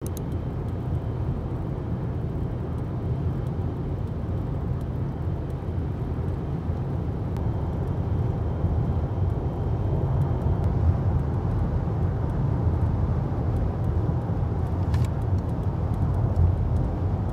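Steady low rumble of a moving vehicle: road and engine noise with no music over it.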